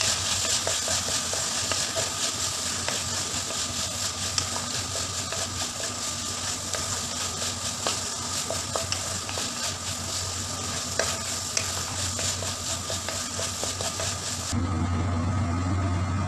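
Diced pumpkin and okra sizzling in oil in a non-stick pan as a spatula stirs them, with frequent light taps and scrapes of the spatula on the pan. About two seconds before the end the sizzling cuts off and a low steady hum remains.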